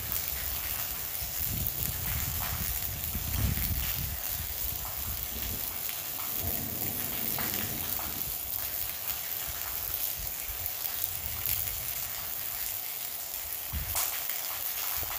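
Thunderstorm rain falling in a steady hiss with scattered crackling drops, and low rumbles that come and go in the first half.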